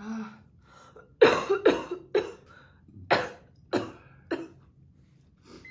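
A person coughing in a fit of about seven hard coughs, a quick cluster followed by a few spaced-out ones, set off by the burn of the super-hot cheese puffs being eaten.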